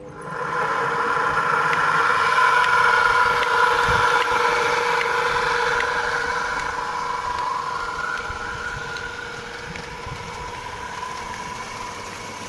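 Belt-driven electric motor running a tubewell water pump, a steady hum with several held tones, the pump just primed and delivering water. It eases a little after about six seconds, with water rushing from the discharge pipe.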